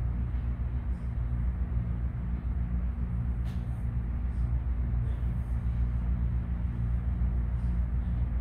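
Steady low mechanical hum of the room, several low tones held without change, with a faint click about three and a half seconds in.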